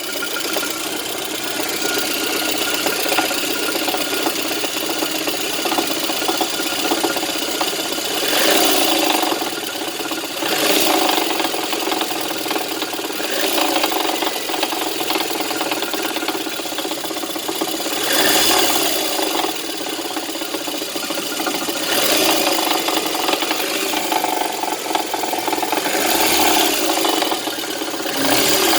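VAZ-2110 engine running with a strong knock of unclear origin, which the owner thinks could be the water pump. The engine is revved up briefly several times.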